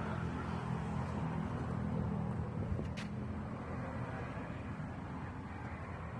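Diesel engine of a Japan-surplus backhoe running steadily, slowly getting quieter toward the end. One short click about three seconds in.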